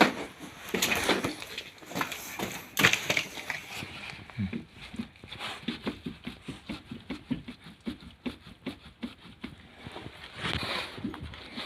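Repeated knocking and clicking from the Audi's raised front wheel and suspension being rocked by hand, the play in a worn ball joint and strut clunking with each movement. Loose, irregular knocks at first, then a fast run of several knocks a second.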